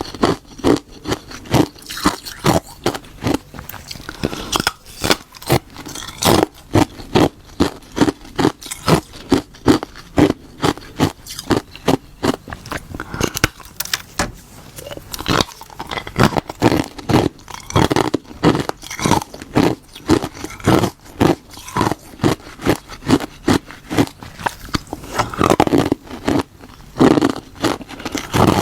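Brittle ice being bitten and chewed close to the microphone: sharp, crackling crunches about two a second.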